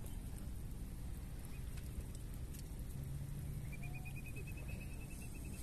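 Steady low rumble of outdoor background noise at the seashore, with a faint, fast, even clicking trill over the last two seconds.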